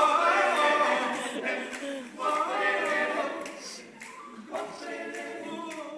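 Male a cappella group singing in close harmony, no instruments. Loud at first, then quieter through the second half.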